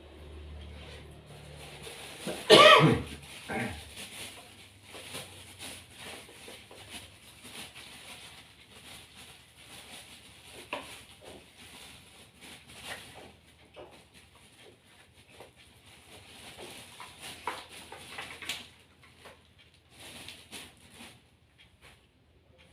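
A person coughing: one loud cough about two and a half seconds in, then a shorter one right after it. Faint scattered rustling and small clicks go on after the coughs.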